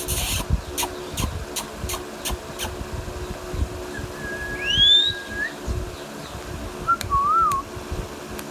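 Indian ringneck parakeet whistling: a held note that breaks into a quick upward sweep, then a short wavering whistle near the end. Before the first whistle comes a run of about six sharp clicks.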